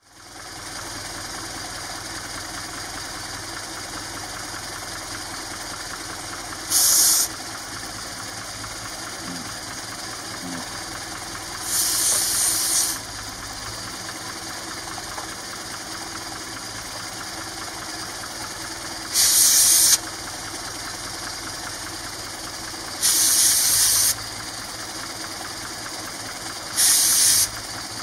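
Classic Mini's A-series engine idling steadily, with five short hisses of an aerosol spray aimed where the SU HS4 carburettor meets the inlet manifold and the manifold meets the cylinder head. The spray is hunting for air leaks, and it shows a leak on the manifold face.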